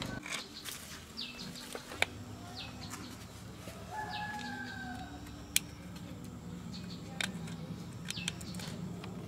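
Birds calling: a few short falling chirps early, then a longer falling call about four seconds in, over a low steady hum, with several sharp taps scattered through.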